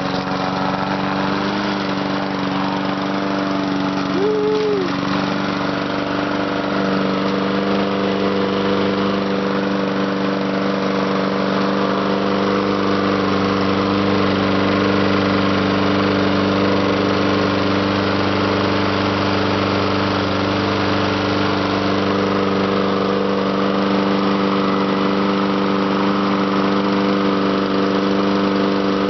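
Walk-behind lawn mower engine running steadily at a constant speed, just caught on a pull start with the choke on.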